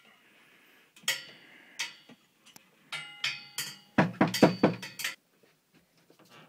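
Metal bunk-bed rails clanging and ringing as they are struck: two separate clanks, then a quick run of about ten clanks from about three seconds in that stops a couple of seconds later.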